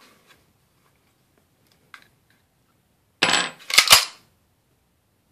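Clicks and a brief scrape from a KWA USP gas blowback airsoft pistol being taken apart by hand, as its slide catch comes out. There is a faint click about two seconds in, then near the end a click, a short sliding rasp and two sharp clacks, the slide catch being laid on the table.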